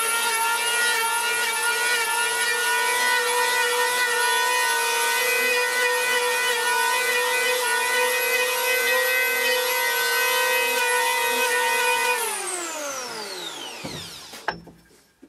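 DEKO electric hand planer running with a steady high whine, its cutter head shaving bark and wood off a honey locust log. About twelve seconds in it is switched off and the whine falls in pitch as the cutter spins down, with a single knock near the end as the tool is set down.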